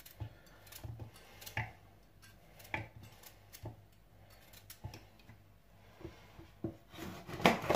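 Kitchen knife tapping and scraping carrot pieces in the plastic bowl of a mini food chopper: scattered light clicks about once a second, with a few louder knocks near the end.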